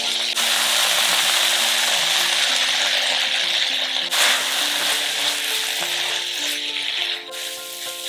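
Shredded cabbage and onion sizzling as they fry in a pan, stirred with a spatula. The sizzle drops off abruptly near the end. Soft background music plays underneath.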